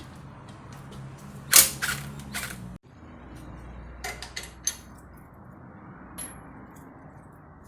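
Sharp metallic clanks and clicks of hand tools on the front suspension while the strut is parted from the hub: a loud cluster about a second and a half in, another about four seconds in, and a short high ping near the end, over a low steady hum.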